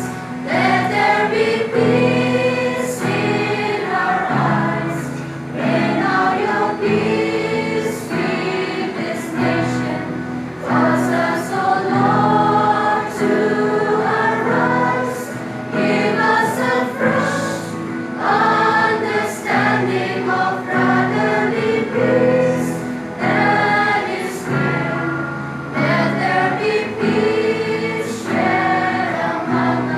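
A choir singing a hymn in held, sustained phrases over a steady instrumental accompaniment.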